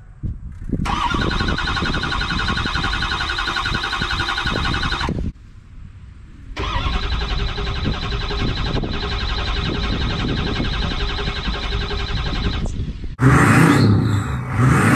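Ford 6.0 Powerstroke V8 turbodiesel being cranked by its starter in two long attempts of about four and six seconds with a short pause between. The engine turns over in an even pulsing rhythm without firing: the cranks-but-won't-start fault. A louder, different sound starts near the end.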